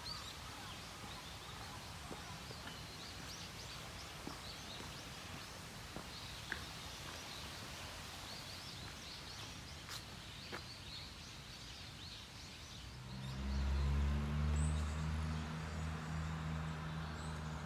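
Outdoor woodland ambience with small birds chirping and a few faint clicks. About thirteen seconds in, a louder low drone with several steady pitches comes in and holds.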